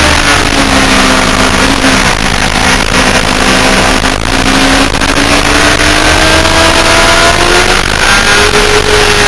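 Motorcycle engine at speed on a track, heard from a camera mounted on the bike with heavy wind rush over the microphone. The engine note holds steady for the first few seconds, through the lean of a corner, then rises steadily as the bike accelerates out.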